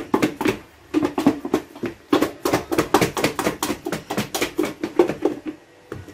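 Chicken drumsticks thudding inside a lidded plastic container as it is shaken hard to coat them in seasoned flour: rapid rhythmic knocks, about four to five a second, with two short pauses, stopping about five seconds in.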